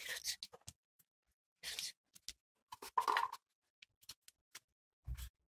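A Doberman sniffing in short, quick bursts with its nose in a blanket, searching for a hidden scent article, with soft fabric rustles and small clicks. A low thump comes near the end.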